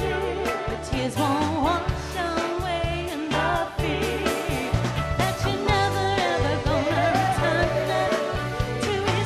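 Motown-style soul song: a wavering sung vocal over a band with a steady bass line and drums.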